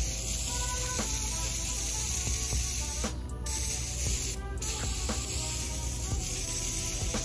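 Water spraying and hissing against a removed manual transmission case as the engine degreaser is rinsed off, the spray breaking off briefly twice. Background music plays throughout.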